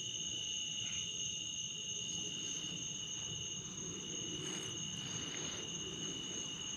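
Night chorus of crickets: a steady, high trilling at a few fixed pitches that holds throughout, over a low background rumble.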